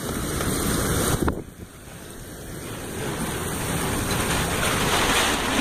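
Gusty storm wind rushing across the microphone. About a second in, a sharp knock and the rush drops away, then the wind noise builds steadily again toward the end.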